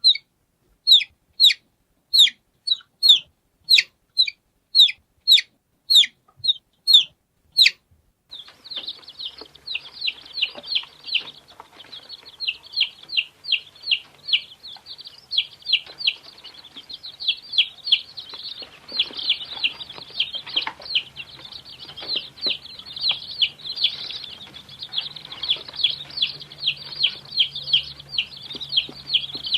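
Baby chicks peeping. For about the first eight seconds a single chick gives loud, separate peeps that slide downward in pitch, about two a second. Then the sound cuts to a brood of many chicks peeping all at once, overlapping, over a faint low hum.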